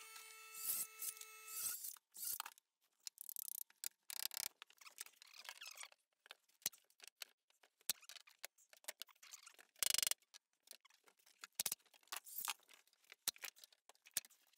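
Faint scattered clicks, taps and scrapes of wood strips and tools being handled while furring out a framed wall, with one louder sharp bang about ten seconds in. A steady hum cuts off about two seconds in.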